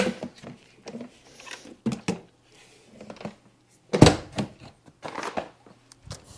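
Handling noises as a LiFePO4 battery is lifted out of a 12 V portable fridge: the fridge's insulated fabric cover rustling and several knocks, the loudest about four seconds in, over a faint steady hum.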